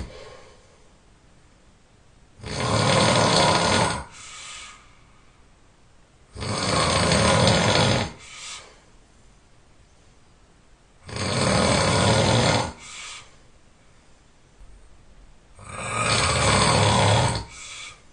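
A person snoring loudly: four long snores come about every four and a half seconds, each followed by a short, softer puff of breath.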